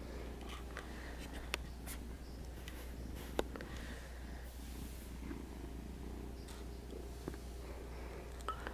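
Kitten purring steadily, with a few sharp clicks scattered through.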